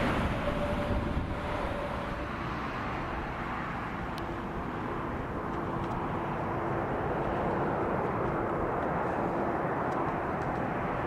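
Kawasaki P-1 patrol aircraft's four IHI F7-10 turbofans, a steady jet noise with a whine. For about the first two seconds a P-1 rolls out on the runway after landing, its whine fading. From about four seconds in, a P-1 on final approach brings a lower steady whine that grows slowly louder as it nears.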